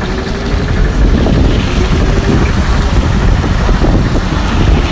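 MTrZ-6223 articulated trolleybus driving along a road, heard from inside: a loud, steady rumble of the running vehicle and road noise, with wind buffeting the microphone. It grows louder about a second in.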